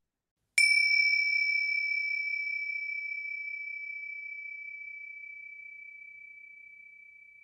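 A single high bell chime struck once about half a second in, ringing a long clear tone that slowly fades away.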